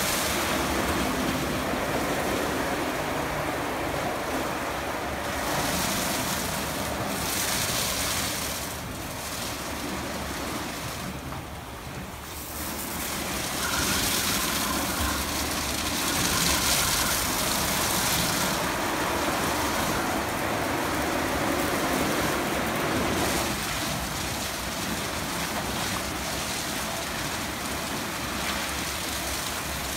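Istobal M12 rollover car wash's red, orange and black Carlite brushes spinning against a car, a continuous wet swishing and rushing of water-laden brushes. It dips briefly about twelve seconds in and then swells again as the brushes pass along the car.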